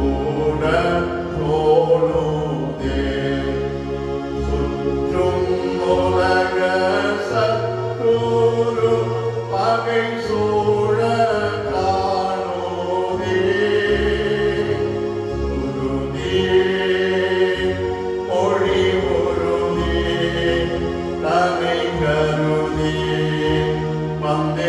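A Tamil hymn of confession sung with instrumental accompaniment, the melody carried over long, held low notes.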